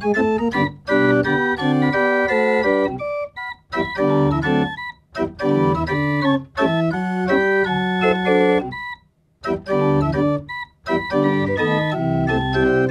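Self-playing home-built chest organ (continuo pipe organ) playing a multi-voice piece under MIDI control, its keys pressed by electromagnets. Held chords and moving parts come in phrases broken by short pauses, the longest about nine seconds in.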